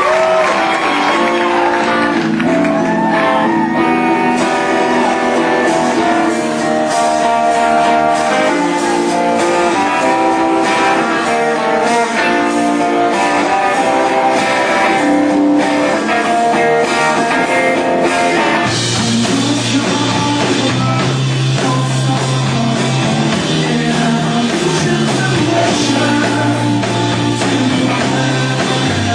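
Live rock band playing a song, led by guitar. About two-thirds of the way through, the bass and the rest of the band come in fuller.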